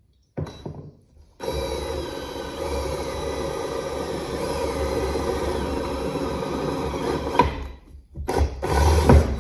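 Cordless drill driving a 5/16-inch twist bit into 14-gauge 1-inch square steel tubing. A short start comes about half a second in, then a steady run with a motor whine of about six seconds while the bit cuts. It stops briefly near the eight-second mark and starts again near the end.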